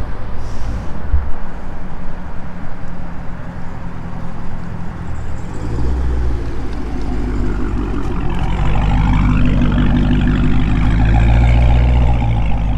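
A Dodge Hellcat's supercharged 6.2-litre HEMI V8 running on the road. It grows louder and higher in pitch about six seconds in, and a rising whine comes in over it from about eight seconds.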